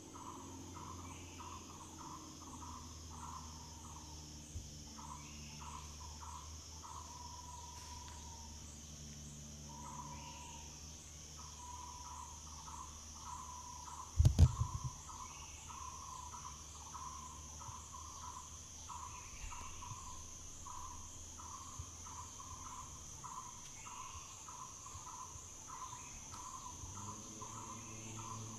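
Insects trilling: a steady, high pulsing buzz with a lower chirping call repeated over and over. A brief low thump comes about halfway through.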